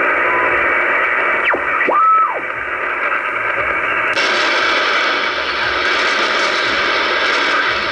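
Shortwave radio receiver tuning through a band near 5 MHz: a high level of static hiss, with a couple of whistling tones gliding in pitch about two seconds in. About four seconds in, the hiss turns brighter and wider.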